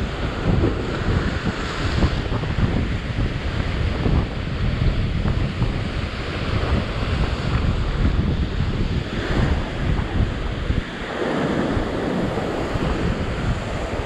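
Rough surf breaking and washing over the rock ledge, with strong wind buffeting the microphone. About eleven seconds in the wind rumble eases and the hiss of the wash comes forward.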